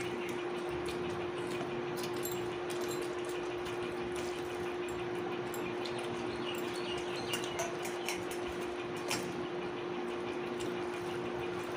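Steady even hum with a constant tone from an appliance running in the room, with scattered faint small clicks of eating from a plate.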